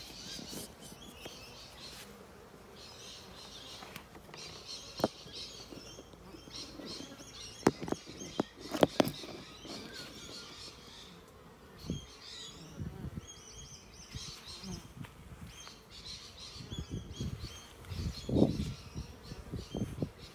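Honeybees buzzing around an open hive while small birds chirp in the trees, with several sharp knocks from hive gear being handled.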